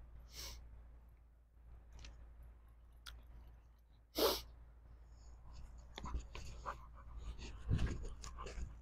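Two short, breathy bursts of noise about four seconds apart, then faint low rustling and soft thumps.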